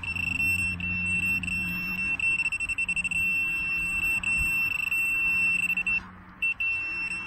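Handheld metal-detecting pinpointer giving a continuous high-pitched buzzing tone while it is probed through the dug soil, the signal that a metal target is right at its tip. The tone flickers as the probe moves and cuts out for a moment about six seconds in, then comes back in short broken pulses.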